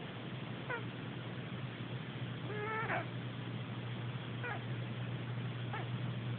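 A sleeping cat snoring, each breath carrying a short pitched squeak, four times in all. The squeak about three seconds in is longer and louder than the rest.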